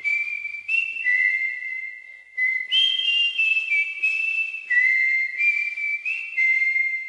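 A whistled melody in background music: about ten single high notes, each held briefly, stepping up and down in pitch with slight slides between them. The last note fades away near the end.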